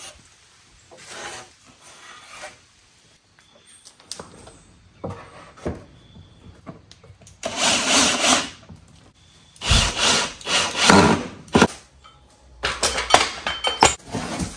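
Cordless drill driving wood screws into two glued layers of plywood, pinning them together while the glue sets: quiet handling of the board at first, then three loud bursts of screws grinding into the wood in the second half.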